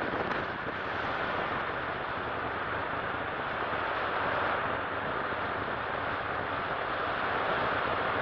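Steady rush of airstream and radial-engine noise at the open jump door of a C-47 in flight.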